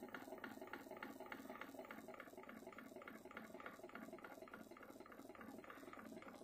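Home-built pulse-driven flywheel motor, its magnet flywheel of almost 60 pounds, spinning up under its driver circuit and giving a faint, even ticking about five times a second.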